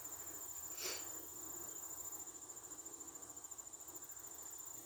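Crickets trilling steadily in a high, continuous tone, with a brief soft noise about a second in.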